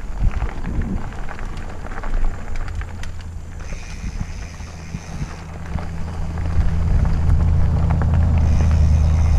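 Mountain bike ride on a dirt singletrack: wind rumbling on the camera microphone, along with tyres rolling over dirt and the bike rattling over bumps. The wind rumble grows louder in the second half as speed picks up.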